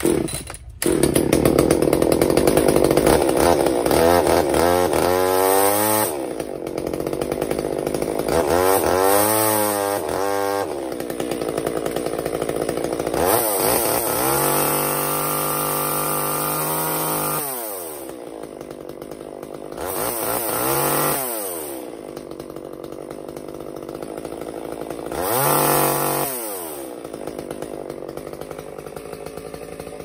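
Echo CS-345 two-stroke chainsaw engine catching on a pull-start about a second in, then running and revved up and down about five times. It runs after its carburetor was cleaned and its fuel lines replaced, but still wants a little carb adjustment.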